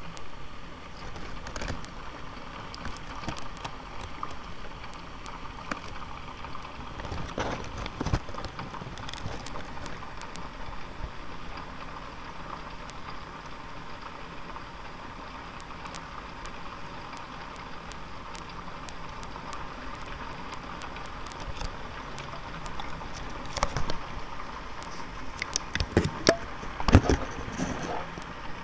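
Hailstones falling and striking hard surfaces: a steady hiss of falling hail dotted with many sharp ticks of single stones, growing denser and louder over the last few seconds.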